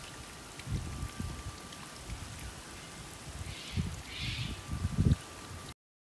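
Watering spray hissing and pattering on sago palm fronds, with several low thumps, the loudest about five seconds in. It cuts off suddenly near the end.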